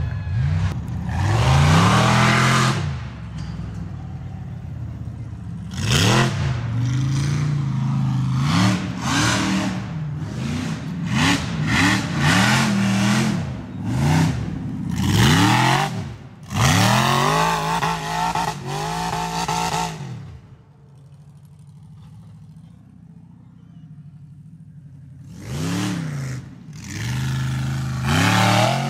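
Off-road racing buggy's engine revving hard in repeated bursts, the pitch rising and falling with each throttle blip, with noisy clatter over it. It drops to a low idle about two-thirds of the way through, then revs again near the end.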